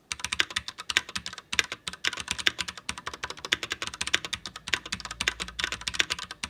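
Fast typing of a full sentence on a Cherry MX 3.0S wireless mechanical keyboard with Cherry MX switches: a rapid, uneven run of key clicks with a brief pause about a second and a half in.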